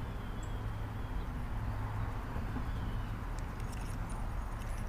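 Steady outdoor background noise with faint bird calls, and a few light clicks near the end as the small spinning reel is worked.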